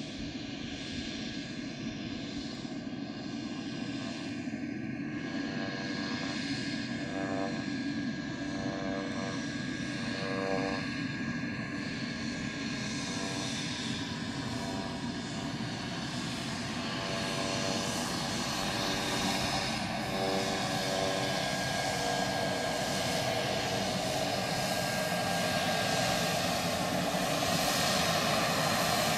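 Daher TBM 910's Pratt & Whitney PT6A-66D turboprop running at taxi power, a steady high turbine whine over the propeller noise. It grows gradually louder as the aircraft comes closer.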